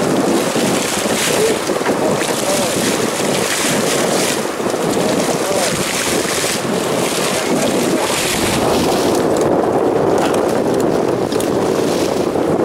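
Steady rush of wind and sea aboard a small fishing boat, with waves splashing against the hull.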